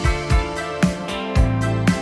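Background music with a steady drum beat, about two beats a second, over a bass line.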